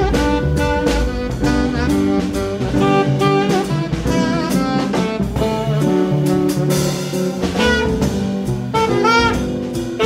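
Jazz background music: a lead melody over chords, with a drum kit keeping a steady beat.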